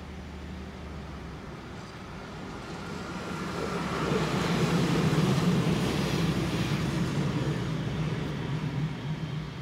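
Yellow rail maintenance vehicle (a motor trolley carrying a crane) passing over a level crossing: its engine and rolling wheels grow louder, peak about five seconds in, then fade away.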